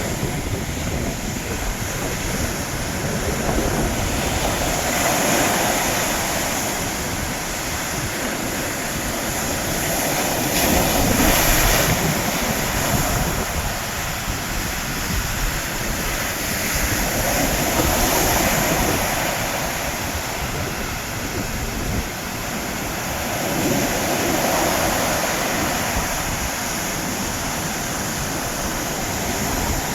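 Sea surf breaking on the shore, a continuous rushing wash that swells with each wave about every six seconds, with wind rumbling on the microphone.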